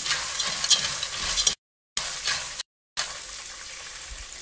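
Wooden spoon stirring dry corn kernels toasting in a metal pot, a scraping, rattling sound over a sizzle, with the kernels not yet popping. The audio cuts out twice briefly.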